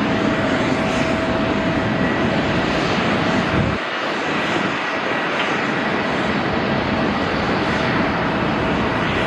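Twin CFM56 turbofan engines of an Airbus A320 at takeoff thrust on the runway roll: steady jet noise with a constant fan whine through it. The deep rumble thins out about four seconds in.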